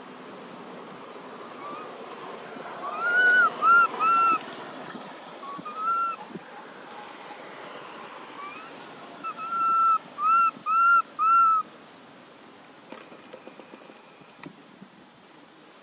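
Baby macaque giving short, high coo calls, each rising and then falling in pitch: a burst of three about three seconds in, a single call around six seconds, and a run of four near ten seconds, with a few fainter ones between. These are its contact calls for its mother.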